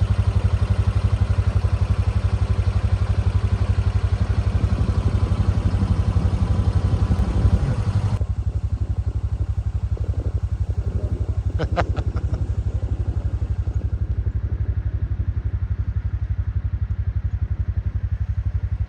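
Honda Pioneer 700-4 side-by-side's single-cylinder engine running steadily, going duller and quieter about eight seconds in, with a few short clicks about twelve seconds in.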